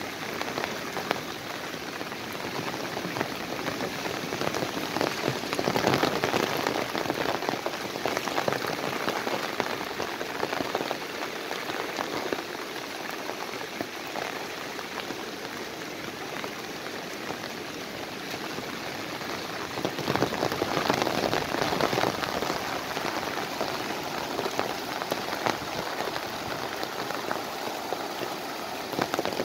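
Heavy monsoon rain pouring steadily, a dense hiss that swells louder twice, about six seconds in and again about twenty seconds in.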